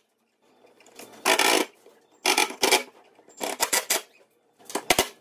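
Cordless impact driver running in about five short trigger bursts, driving metal self-tapping screws through a PVC junction box's mounting tab into a jon boat.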